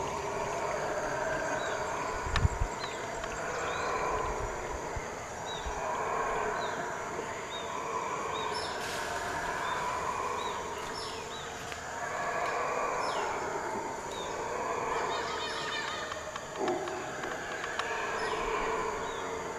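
A chorus of howler monkeys howling in long waves that swell and fade every couple of seconds. Short high chirps repeat over it, and there is one low thump about two seconds in.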